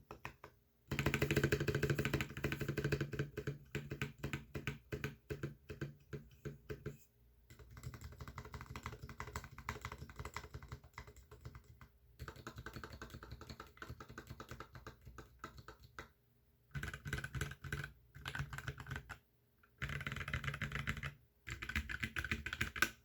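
Typing on a NovelKeys NK65 Entry Edition mechanical keyboard with lubed Zealios v2 67g tactile switches and PBT keycaps: runs of rapid keystroke clacks broken by short pauses. The loudest are a dense burst just after the start and several short fast bursts near the end.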